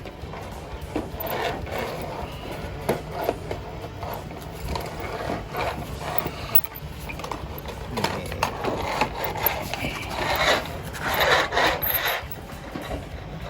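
Hand-operated sheet-metal bending roller (New Roll) worked along the edge of a metal sheet: a run of irregular scraping and rubbing strokes, loudest about ten to twelve seconds in.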